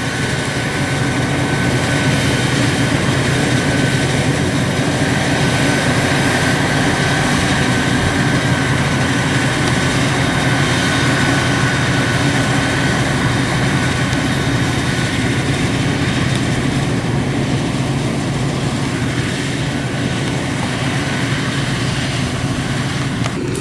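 Self-propelled forage harvester chopping maize: its engine and cutterhead run steadily in a loud, continuous drone with a high whine that fades about halfway through. The sound changes abruptly just before the end.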